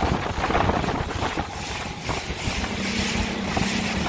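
Aluminum bass boat running at speed over choppy water: wind buffets the microphone and the hull slaps the chop in irregular knocks. About two and a half seconds in, the steady hum of its Evinrude E-Tech 150 outboard comes through.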